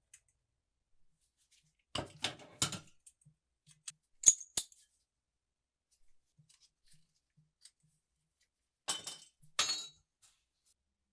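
Small hard oil lamp parts clinking and clattering as they are handled. A cluster of knocks comes about two seconds in, two sharp ringing clinks a little after four seconds, and another clatter near the end.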